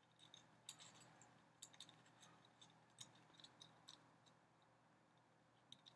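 Faint, scattered clicks and light scrapes of a small hot-shoe part being worked into place over the hot shoe of a Canon 5D Mark II camera by hand, mostly in the first four seconds, with two more small clicks near the end.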